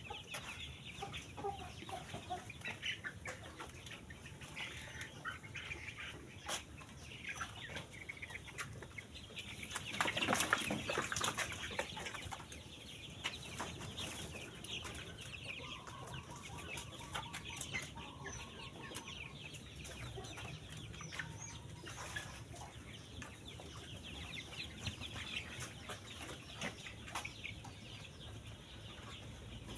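A flock of chickens in a coop clucking and chirping, many short overlapping calls, with a louder flurry of calls about ten seconds in.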